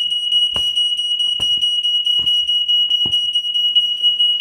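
Smoke detector's alarm horn sounding a continuous, shrill, high-pitched tone, set off during a smoke test. A few light knocks come in under it, about one a second.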